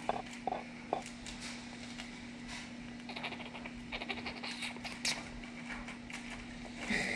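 A squirrel gnawing and tearing at a dry locust seed pod: quick, dry crackling and clicking, with a few sharper snaps in the first second and a dense run of small clicks in the middle.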